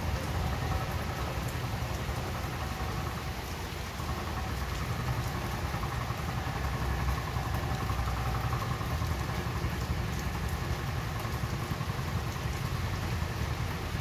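Steady rainfall, the hiss dotted with faint drop ticks over a constant low rumble.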